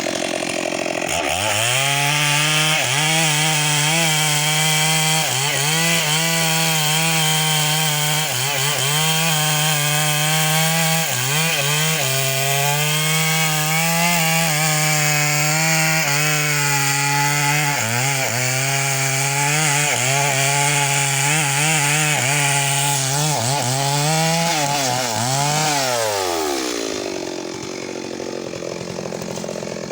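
Stihl MS 382 two-stroke chainsaw revved up from idle about a second in, then held at full throttle while cutting through mahogany wood, its pitch dipping briefly again and again as the chain bogs under load. Near the end the throttle is released and the engine falls back to idle.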